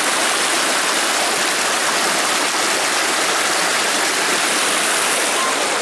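Small forest stream rushing over rocks in shallow cascades: a steady rush of water.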